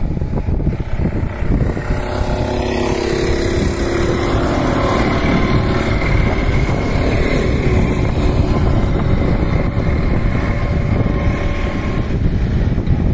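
Racing karts' small engines droning as they pass and pull away along the track, with a rising and falling whine through the middle. Strong wind rumble on the microphone runs underneath.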